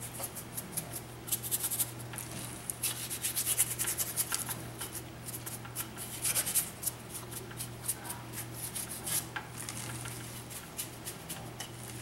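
Bristle paintbrush scrubbing paint onto a rough cast-concrete statue in quick back-and-forth strokes. The strokes come in bursts of several scratchy swipes with short pauses between.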